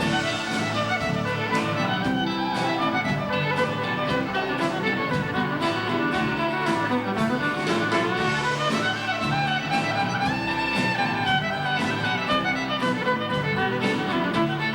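Live band playing an instrumental break between verses, a fiddle taking the lead with sliding notes over guitar and a steady drum beat, recorded through a camcorder's built-in microphone.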